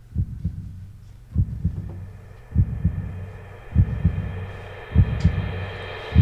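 Intro of a music track: low heartbeat-like thumps in clusters of two or three about every 1.2 seconds, under a drone that swells and gets brighter toward the end.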